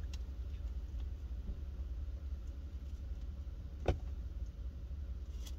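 Low, steady rumble of a car idling, heard inside the cabin, with a single sharp click a little under four seconds in.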